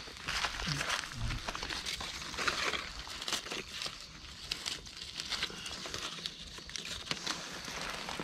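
Leaf litter and twigs on the forest floor rustling and crackling in many small irregular clicks, as someone moves through it and handles things on the ground while picking mushrooms.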